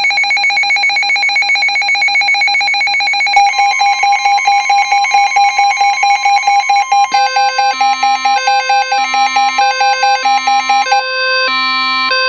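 Weather radio alert alarm: a loud, fast-pulsing electronic beep that changes about seven seconds in to a repeating pattern of alternating high and low beeps. A steady warning-alarm tone joins about three seconds in and holds almost to the end, announcing that a severe thunderstorm warning follows.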